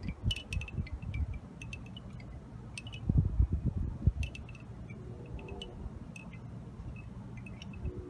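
Bamboo wind chimes clacking as they swing in the wind: scattered hollow knocks, thickest in the first second and again around three to four seconds in, sparser after that, with gusts of wind rumbling on the microphone.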